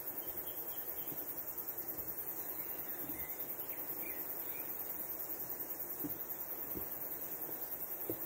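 Steady rush of flowing water from the waterfall and its stream, with a few soft thuds of footsteps on the dirt track.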